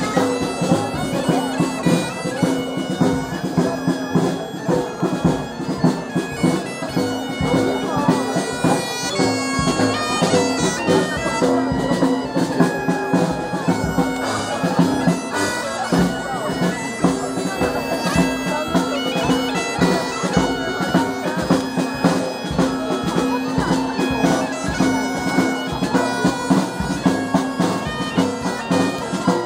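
Live parade music: wind instruments playing a tune over a steady held drone, with drumbeats.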